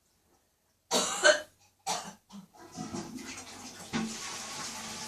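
A woman's catarrhal cough: a loud double cough about a second in, then two shorter coughs. A little later a tap starts running with a steady rush of water.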